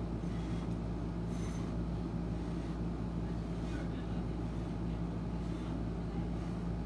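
A steady low hum, with a few faint, brief mouth sounds of a woman eating cup noodles off a fork.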